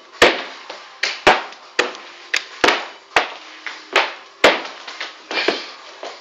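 Irregular thuds and slaps of hands, feet and body hitting a wooden floor during breakdance floor moves, about eight sharp knocks with brushing and sliding noise between them.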